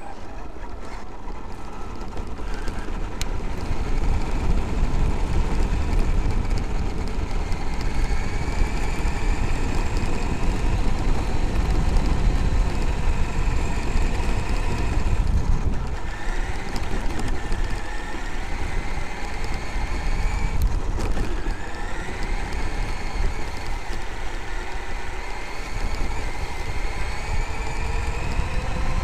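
Traxxas X-Maxx RC monster truck driving, heard from on board. Its brushless electric motor and gears whine, rising in pitch as it speeds up and dropping away twice partway through. Its tyres and chassis rumble steadily over gravel and rough grass.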